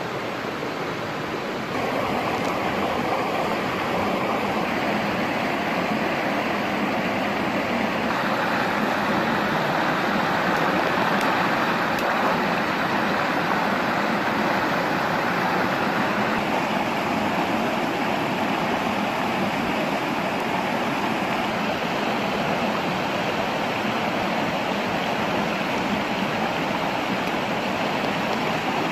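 Shallow stream rushing over smooth rock slabs and small cascades, a steady rush of white water that gets a little louder about two seconds in.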